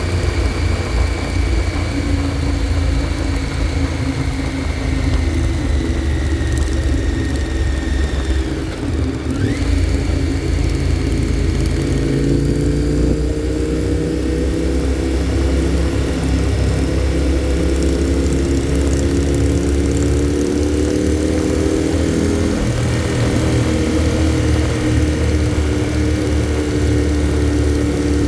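Motorcycle engine running at road speed, heard from the rider's own seat with a steady low rumble. The engine note sags about eight to nine seconds in, then climbs again from about twelve seconds in as the bike picks up speed.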